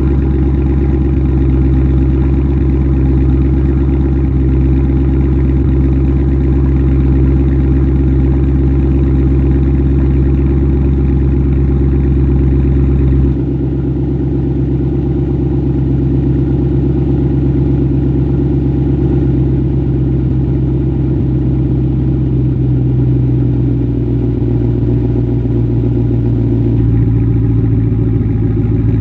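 2017 Chevrolet Camaro SS 1LE's 6.2-litre V8 idling steadily through a Stainless Works cat-back exhaust, a low, even sound with no revving. The tone changes abruptly about halfway through and again near the end, as one recording cuts to another.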